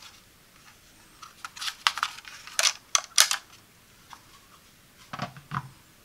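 Hard plastic clicking and scraping as the wiring-harness plug is worked out of its clip on the back of a First Alert smoke alarm's plastic base: a quick run of sharp clicks in the first half, then two duller knocks near the end.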